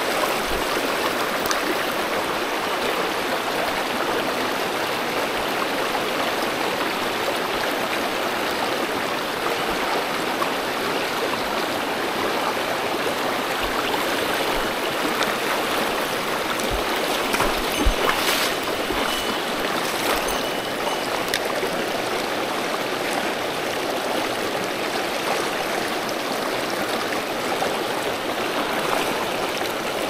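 Mountain stream rushing steadily over rocks, with a few brief knocks about eighteen seconds in.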